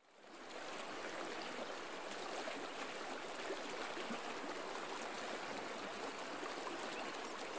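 Steady rush of flowing river water, fading in at the start.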